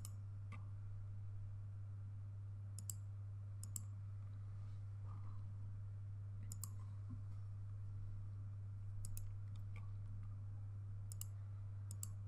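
Computer mouse clicking: a sharp click every second or two, several in quick pairs, over a steady low hum.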